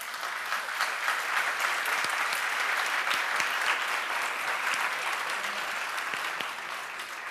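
Audience applauding steadily, a dense even patter of many hands clapping, fading slightly toward the end.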